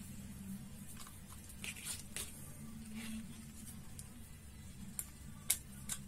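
A screwdriver turning a screw into the plastic housing of a small vibration motor: faint scrapes and clicks of the bit and plastic, the sharpest click near the end, over a low steady hum.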